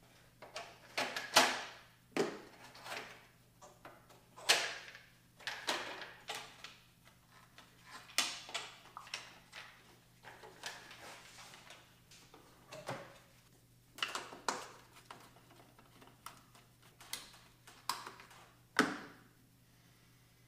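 Irregular clicks, knocks and rattles of engine-bay parts being unclipped and handled by hand while the intake Y-pipe is taken apart, with a few sharp clacks louder than the rest.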